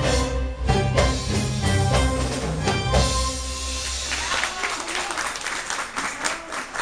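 Live band playing belly-dance music on keyboard, hand drum and drum kit, with steady drum hits, ending about four seconds in. Audience applause follows as the music stops.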